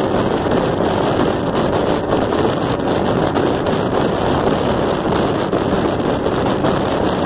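Small aluminium boat under way at speed: the outboard motor running steadily, mixed with wind buffeting the microphone.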